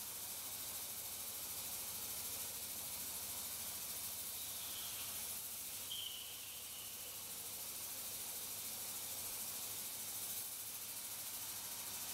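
Steady hiss of flood coolant spraying and splashing inside a CNC milling machine's enclosure while a face mill takes a light clean-up pass over a metal plate. A faint, brief high-pitched whine sounds around the middle.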